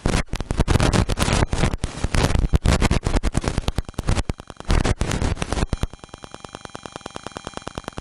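Loud, dense crackling and scraping handling noise, from something rubbing directly on the camera's microphone. After about six seconds it drops to a quieter, fast, even crackle.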